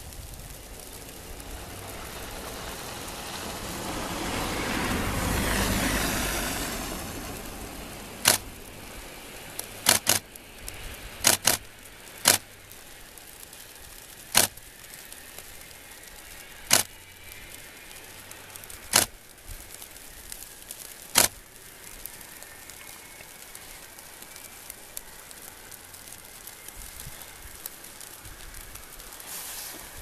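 Diesel railcar engine pulling away: its drone swells for the first few seconds, then fades as it moves off. After that come about ten sharp clicks, some in quick pairs, spaced one to two seconds apart and louder than the train.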